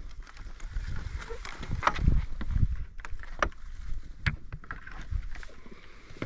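A hiker's footsteps while walking, as irregular sharp taps about every half second to a second, over a low rumble and rustle of movement and wind on the microphone.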